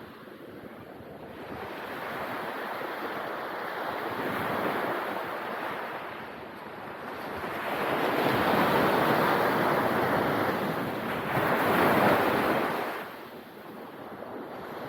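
Ocean waves breaking on a beach, the surf swelling and ebbing, with a big crash of surf about eight seconds in that falls away near the end. There is some wind rumble on the microphone.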